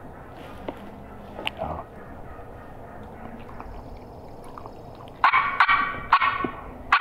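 Turkey mouth call blown by a hunter cupping his hand over his mouth: quiet for about five seconds, then a loud run of sharp turkey notes, with one more just before the end.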